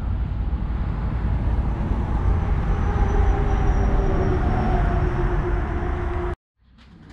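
Loud, steady vehicle rumble with a faint whine that slowly falls in pitch. It cuts off suddenly about six seconds in.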